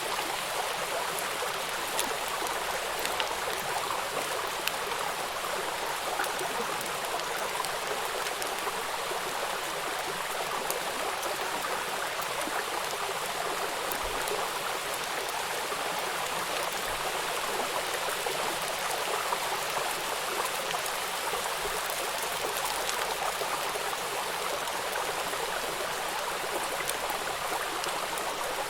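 Water of a stream running steadily, an even rush with faint scattered small splashes and drips.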